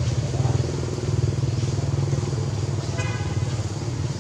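A motor vehicle engine running steadily nearby with a low, pulsing hum, and a brief high-pitched tone about three seconds in.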